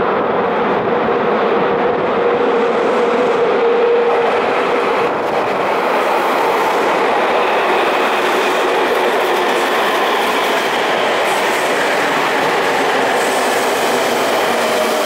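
Tokyu 3000 series electric train running into an underground station and slowing: a steady, loud rolling and wheel clatter, with the thin electric whine of its Hitachi IGBT-VVVF inverter braking, its pitch falling slightly near the end.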